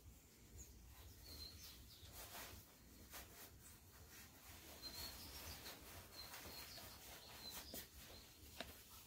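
Near silence with faint, brief bird chirps from outside, several times, and soft rustling of kimono fabric and folded paper being drawn from the kimono front.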